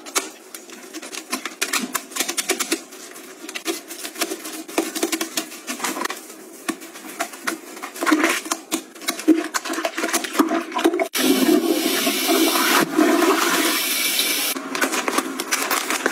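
Disposable toilet-brush head scrubbing inside a toilet bowl: many short scrapes and splashes. About eleven seconds in, a toilet flushes with a loud rush lasting about three and a half seconds, followed by scattered light rustles and clicks.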